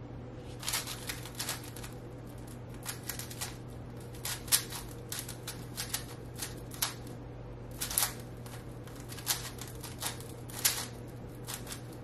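5x5 speed cube being turned rapidly by hand: irregular runs of quick plastic clicks and clacks as the layers turn, with a faint steady hum underneath.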